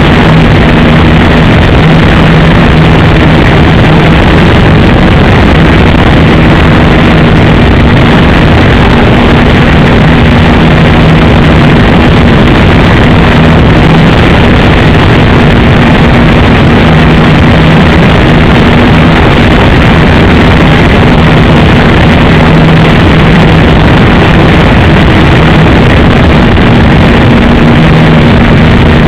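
Engine of a radio-controlled Piper J-3 Cub model running in flight: a steady drone that grows and fades a little as the plane moves about. The recording is overloaded and heavily distorted.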